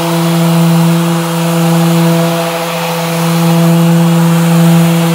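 Electric random orbital sander with a 220-grit disc running steadily across a beech butcher block countertop: a constant hum over a sanding hiss.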